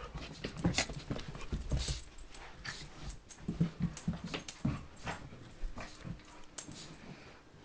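Two dogs play-fighting on carpet: scuffling and quick paw and body sounds, with a few brief low dog vocal noises around the middle.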